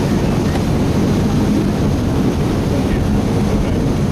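Steady drone of a boat's engine under way, with wind buffeting the microphone and the rush of water.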